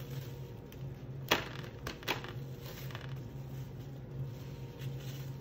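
Plastic cling wrap crinkling and rustling as it is pulled and pressed over dough on a metal sheet tray. There is a sharp knock about a second in, then a few lighter clicks, over a steady low hum.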